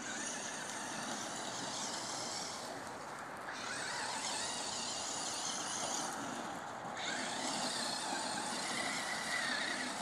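Electric radio-controlled truck (Duratrax Evader) running across grass, its motor and gears whirring in spurts that cut out briefly twice, a little after three seconds in and again around six seconds.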